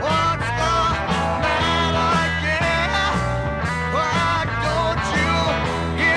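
Rock song playing from a vinyl record: a steady bass-and-drum groove under melody lines that bend and waver in pitch.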